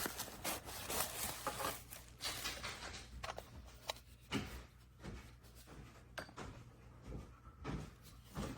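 Scattered clicks, light knocks and rustling of objects being handled, over a low steady hum.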